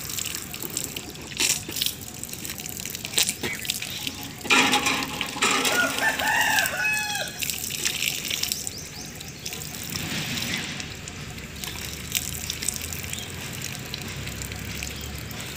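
Water from a hand pump spout pouring and splashing as a man washes his hands and face in it. A rooster crows about four and a half seconds in, the loudest sound here.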